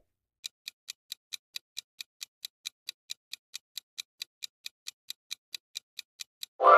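Clock-ticking sound effect counting down a quiz timer, about four to five even ticks a second. Near the end a loud bright chime rings out and dies away slowly.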